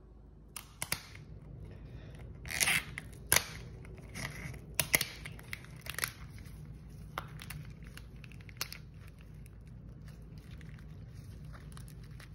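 Crackling and crunching of a raw lobster tail's shell as gloved hands pry it apart and lift the meat out, with plastic gloves crinkling. Several sharp cracks are scattered through, the loudest cluster about two and a half to three and a half seconds in.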